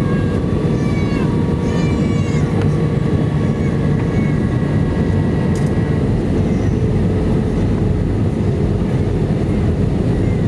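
Steady cabin roar of an Airbus A319 in descent toward landing: engine and airflow noise, with a few faint steady tones in it. A few short, high wavering sounds rise above it in the first couple of seconds.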